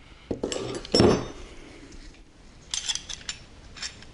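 Steel wrenches clinking and clanking together as they are picked up and set down: one loud clank with a brief metallic ring about a second in, then a few lighter clinks near the three and four second marks.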